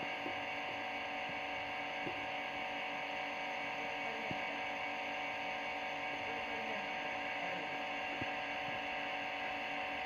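A steady electrical hum made of several steady tones, with a few faint ticks.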